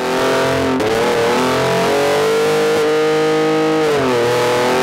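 Ford Ranger Raptor's engine sounding through a Tickford 3-inch stainless exhaust as the truck is driven, holding fairly steady revs, with the pitch dipping briefly about a second in and again near the end.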